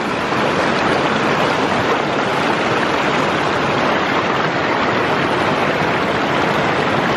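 Shallow mountain creek water running over a rocky bed, a steady rush close to the microphone.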